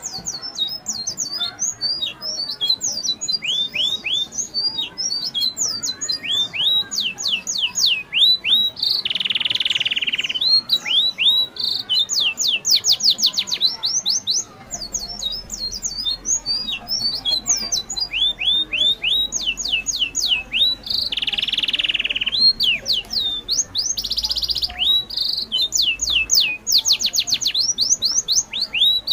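Birds chirping: repeated runs of quick, high, downward-sweeping chirps, broken by short hissy buzzes about 9, 21 and 24 seconds in.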